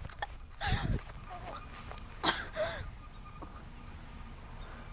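Two brief cries with a bending pitch, one about a second in and the other just after two seconds, over a faint steady background.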